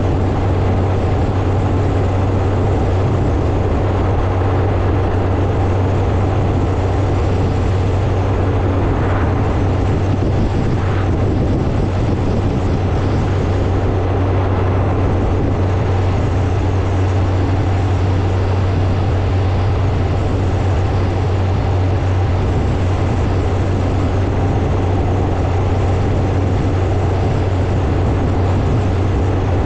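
Motorcycle riding at a steady speed: a constant low engine drone under a dense rushing road and air noise, unchanging throughout.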